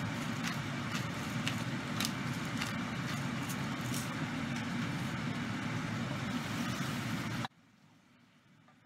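Steady rushing noise of stovetop cooking over a pot of chicken, with scattered light clicks and taps from the pepper grinder and wooden spoon. It cuts off abruptly about seven and a half seconds in.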